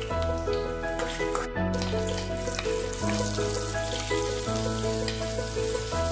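Ginger, garlic and chopped onion frying in oil in a pot, a steady sizzle, under background music whose chords change every second or so.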